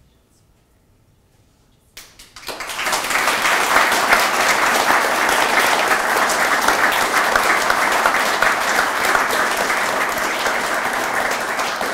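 Audience applauding: silence for about two seconds, then many people start clapping suddenly and keep it up steadily.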